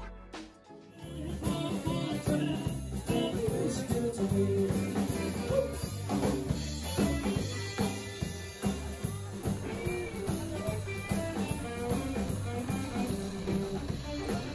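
Background music with guitar and drums, starting about a second in.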